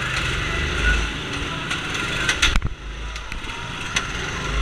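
Small Honda go-kart engines running as the kart moves off from the pit lane, a steady rumbling noise. A cluster of sharp clicks comes about halfway through.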